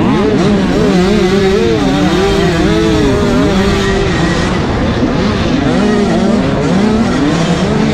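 Motocross dirt bike engines being ridden hard: one engine note swings up and down in pitch again and again as the throttle is opened and closed through the turns and gear changes, over a second, steadier engine note.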